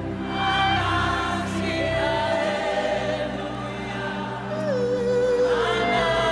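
Live gospel worship music: a choir and congregation sing long, held notes with vibrato over steady sustained instrumental backing. About two-thirds of the way through, a lead voice slides downward.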